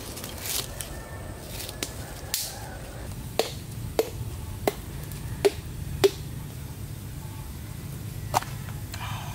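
Machete blade chopping at a coconut: five sharp knocks about two-thirds of a second apart, then one more near the end. Before them come a few rasps of husk fibre being torn away by hand.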